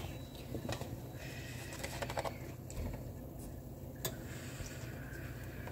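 Scattered light clicks and taps of kitchen containers and utensils being handled, over a low steady hum.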